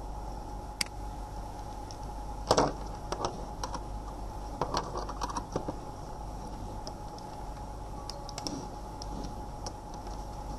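Scattered light plastic clicks and taps, the loudest cluster about two and a half seconds in, over a steady electrical hum.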